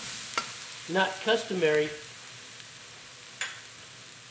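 Minced garlic sizzling in hot peanut oil in a wok as it is stirred, with a couple of sharp clicks of the spatula against the pan.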